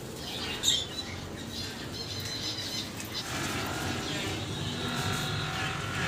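Aviary birds calling: a sharp squawk about a second in, then a thin high whistle and overlapping chattering calls through the second half.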